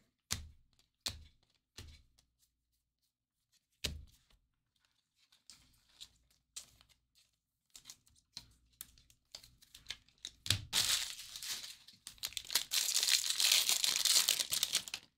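Baseball cards handled, giving a few scattered sharp clicks. Then, from about ten seconds in, the foil wrapper of a 2019 Bowman Jumbo pack is torn open and crinkled. The crinkling is the loudest sound and runs on for about four seconds.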